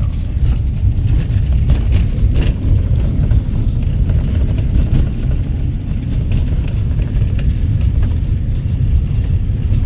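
Vehicle driving over a rough dirt road, heard from inside the cabin: a steady low rumble of tyres and engine, with a few short knocks and rattles from bumps about two seconds in.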